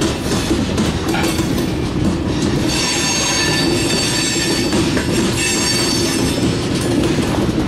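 Covered hopper cars rolling past on the rails, wheels clacking over rail joints. A high-pitched wheel flange squeal sets in about three seconds in, holds for a couple of seconds, and returns briefly near the end.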